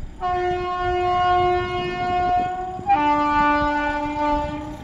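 Vande Bharat Express electric trainset sounding its horn in two long notes, a higher one for a couple of seconds and then a lower one, as it approaches.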